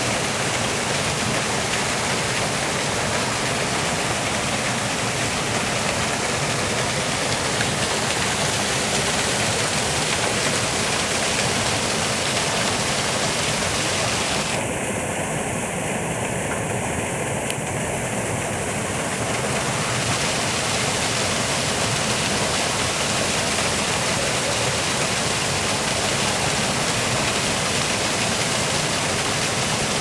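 A small waterfall cascading over boulders into a rock pool, a steady, even rush of water.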